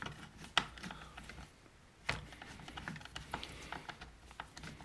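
Small clicks and taps of a hand tool and screws while the recoil starter housing is screwed onto a chainsaw: a sharp click about half a second in, another about two seconds in, then a run of light, irregular ticks.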